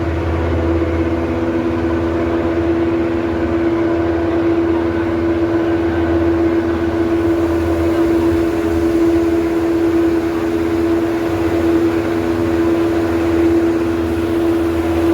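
Dam warning siren sounding one long, steady tone at a fixed pitch, over a low rumble. It signals that the floodgates are being opened to release water.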